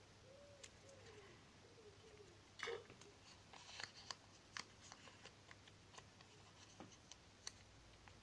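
Faint rustling and crinkling of small paper slips being folded by hand, with scattered sharp clicks. The loudest crinkle comes a little under three seconds in.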